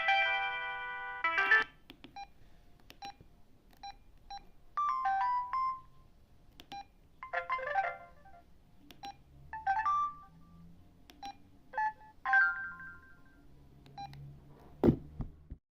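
Samsung SGH-C160 mobile phone's polyphonic ringtone playing and stopping about a second and a half in. Then short keypad beeps as buttons are pressed, broken four times by brief chimes of a few notes, typical of the phone previewing its short SMS tones, and a single thump just before the end.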